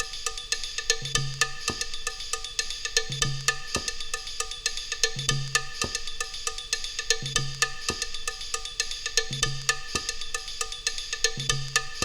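Instrumental music: a beat of sharp, woodblock-like percussion clicks with a short low bass note about every two seconds.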